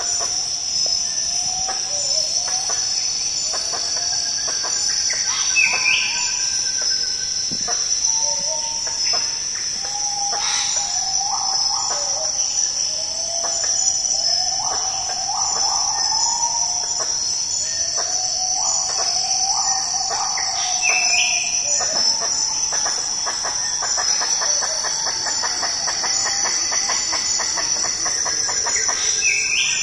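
Kloss's gibbons singing: a series of repeated whooping notes that slide up and down, with a few higher upward swoops, quickening into a fast trill about two-thirds of the way through. Underneath runs a steady high-pitched drone of rainforest insects.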